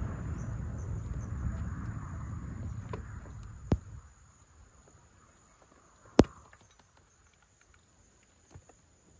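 Steady high insect drone, with a low rumble fading out over the first few seconds. Two sharp clicks cut through it about four and six seconds in, the second louder.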